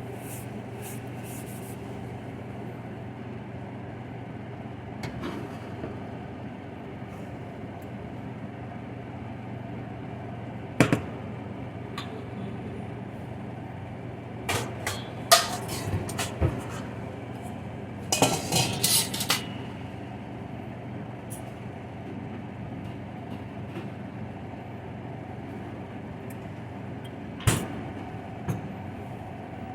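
Kitchen clatter over a steady low hum: scattered knocks and clinks, with two short bursts of rattling near the middle and a single sharp knock near the end.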